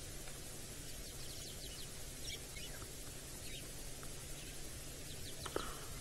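Faint, high bird chirps every second or so over a steady low background noise, with one short knock about five and a half seconds in.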